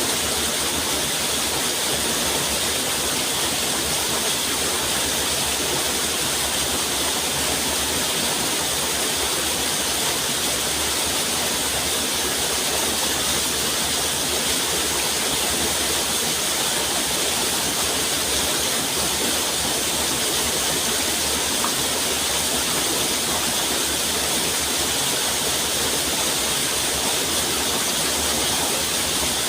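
Rushing water, a steady, unbroken wash of noise with much of its energy high up, like a waterfall or fast stream.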